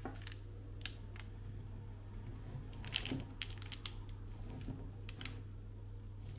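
Kitchen knife cutting through a chocolate brownie's crisp top crust, giving an irregular scatter of sharp crackles and clicks, the loudest about three seconds in, over a steady low hum.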